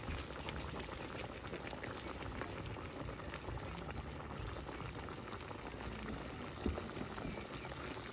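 Green bananas bubbling at a steady boil in sauce in a metal pan over a wood fire, with one soft knock near the end.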